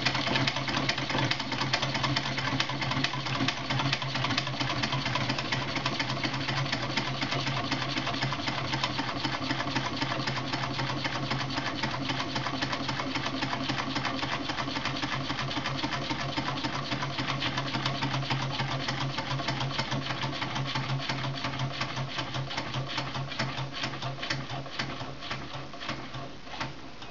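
Home-built beer-can gamma Stirling engine running, its wire crank and displacer linkage clattering in a fast, even rhythm over a steady hum. Over the last few seconds the beat slows and gets quieter as the engine winds down.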